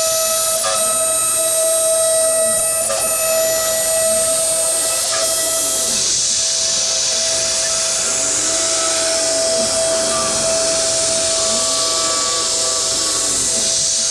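CNC router milling: the spindle runs at a steady pitch with a high hiss, while the axis motors whine up and down in pitch as the machine sweeps back and forth, about every two seconds.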